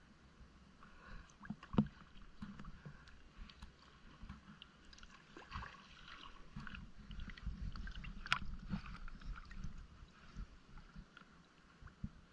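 Water sloshing and lapping close to the microphone at the water's surface, with scattered small clicks and a few sharper knocks, the loudest about eight seconds in.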